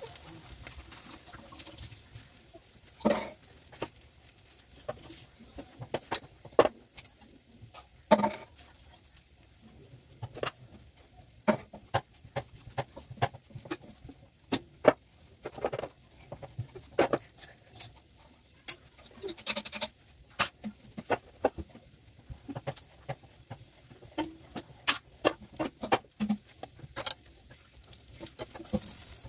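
Irregular clinks, taps and scrapes of a steel spoon and utensils against a cast-iron tawa on a gas stove while a paratha cooks, with a few louder knocks.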